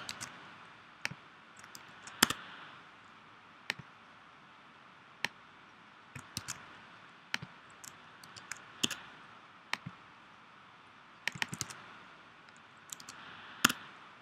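Computer mouse clicks and keyboard key presses, sharp and irregular, a dozen or so spread out with a few coming in quick little clusters, as text is selected, copied and pasted between browser tabs.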